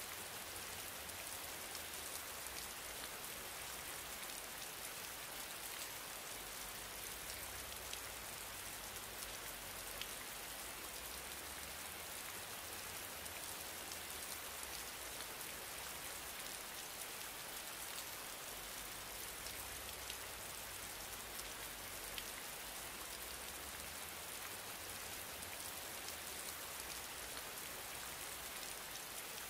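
Steady hiss of background noise with a low hum beneath it and a few faint clicks; no speech.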